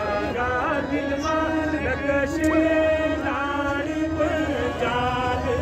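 A voice singing a slow melody in long held, wavering notes, with crowd murmur behind it.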